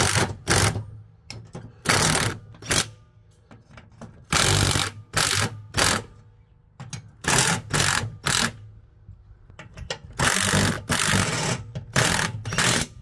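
Cordless impact driver fastening the mounting bolts of a John Deere D130 mower deck spindle. It runs in about fifteen short trigger bursts, in groups of two or three every couple of seconds, and the bolts are tight.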